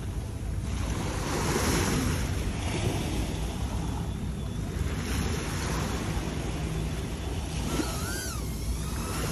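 Sea surf washing in against shore rocks in repeated swells, with wind buffeting the microphone. Near the end a short wavering whistle-like tone rises and falls.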